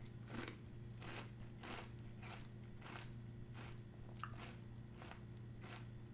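Mouthful of Special K Blueberry with Lemon Clusters cereal flakes in milk being chewed: faint, regular crunches, about two a second.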